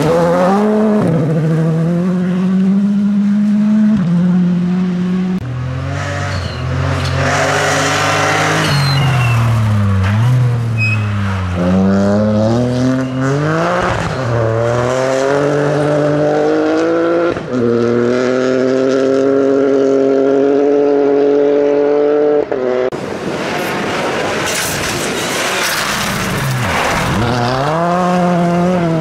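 Rally cars driven flat out on a gravel stage, one after another: engines at full throttle, pitch climbing through the gears and dropping sharply on each shift or lift, with a few abrupt cuts between cars.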